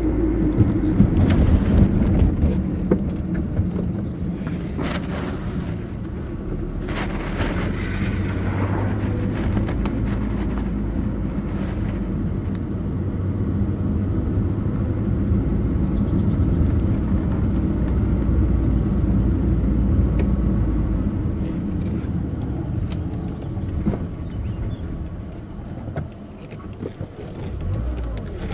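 A car driving along a road: steady engine and tyre rumble, with a few short rushes of noise in the first twelve seconds or so.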